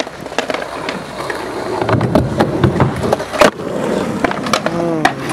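Skateboards on a concrete skatepark: wheels rolling, with repeated sharp clacks of decks and tails hitting the ground and one loud smack about three and a half seconds in.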